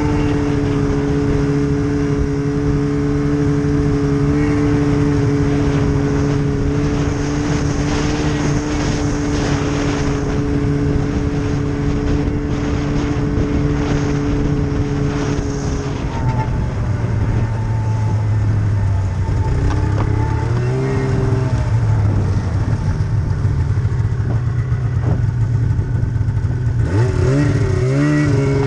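Arctic Cat snowmobile engine running steadily at cruising speed. About halfway through the engine note drops as the sled slows and wavers briefly. It rises again near the end as the sled accelerates.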